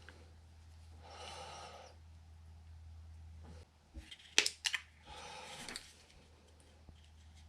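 A person breathing out twice at a workbench, with a few sharp clicks of tools and wires being handled between the breaths. A low steady hum runs underneath and cuts off about halfway through.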